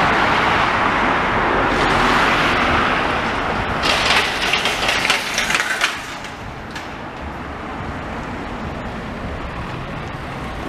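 Road traffic: car tyre and engine noise swells as a car passes close, then a hissy rush about four to six seconds in, before settling to a lower, steady traffic hum.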